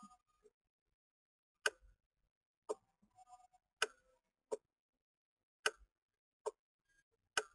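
Computer mouse button clicks, about seven sharp single clicks at uneven intervals.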